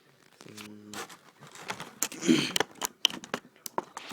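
Toy packaging being handled as a small plastic toy is worked loose: crinkling and tearing with many sharp clicks, and a louder scraping rustle about two seconds in.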